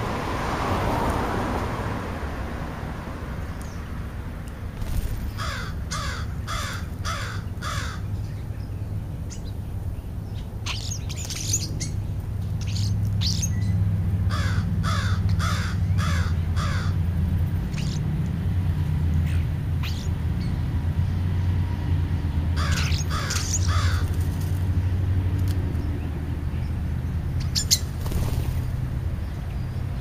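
American crows cawing in several quick bouts of about four to six caws each, with a steady low rumble underneath.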